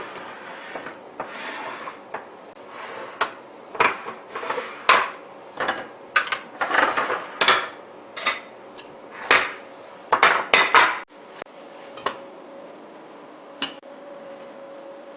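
Kitchen clatter: dishes, containers and utensils clinking and knocking against each other in quick, irregular strikes for about eleven seconds. The sound then cuts to a quieter stretch with a faint steady hum and a few lone clicks.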